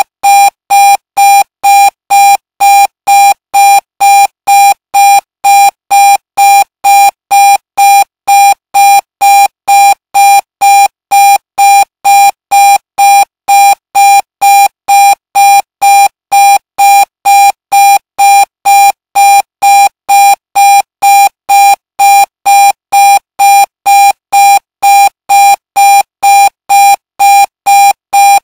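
Electronic alarm clock beeping: a steady, unchanging run of short high-pitched beeps, about two a second, loud.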